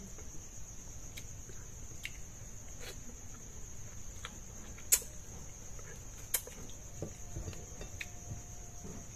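Steady high-pitched chirring of crickets, with scattered light clicks and two sharper clicks, about halfway through and again a second and a half later.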